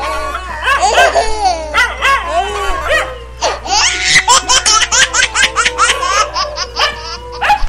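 Loud laughter with a dog barking.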